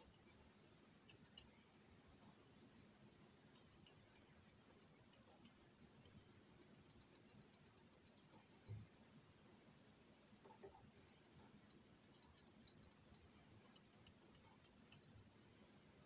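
Faint, scattered clicking of a lock pick working inside the keyway of a Miwa/Anker 3800 cylinder under tension, in a few short clusters, with one soft thump about nine seconds in.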